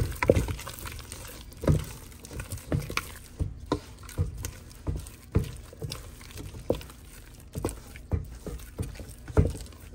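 Thick churro dough being beaten by hand to work in the eggs: irregular knocks of the mixing utensil against the container, about one or two a second.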